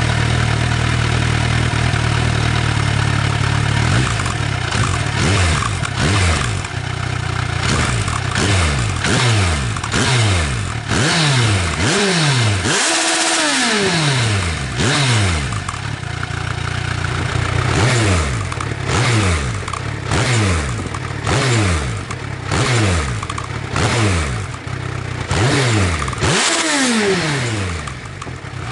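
Kawasaki Versys 1000's inline-four engine through an Akrapovic carbon slip-on silencer, idling steadily for about four seconds, then blipped over and over, each rev rising quickly and falling back, with one bigger rev about halfway.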